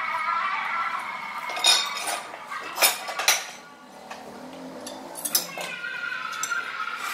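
Ceramic tile pieces clinking and knocking together as they are picked up and handled, four sharp clinks between about one and a half and five and a half seconds in.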